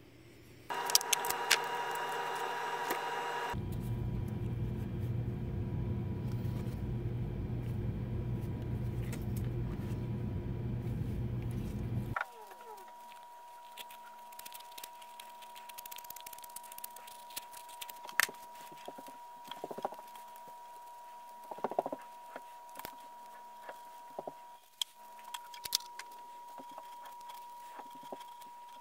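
Benchtop drill press motor running: a whine that starts about a second in, turning into a louder rumble a few seconds later, then cutting off abruptly about twelve seconds in. After that come light clicks and handling noises of leather handwork.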